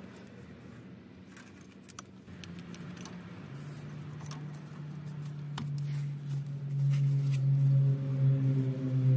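Light clicks and small rattles of a sensor wire and plastic clips being handled and pushed into place. A low, steady droning hum grows from about three and a half seconds in and is the loudest sound by the end.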